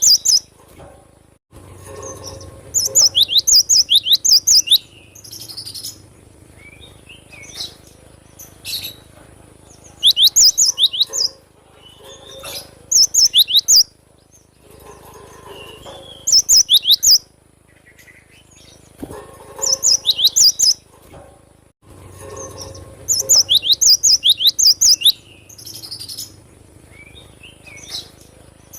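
Cinereous tit singing: loud bursts of four to six quick, sharp whistled notes, repeated every few seconds, with softer chirps between the bursts.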